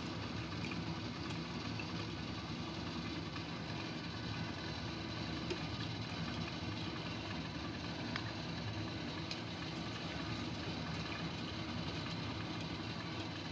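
Steady low rumble of water boiling hard in a steamer pot on the stove, with a few faint ticks.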